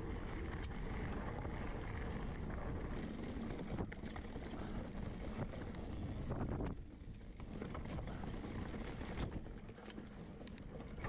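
Wind buffeting the microphone of a camera carried on a mountain bike while riding, a steady rushing noise with a few sharp clicks and rattles. It eases off a little about two thirds of the way through.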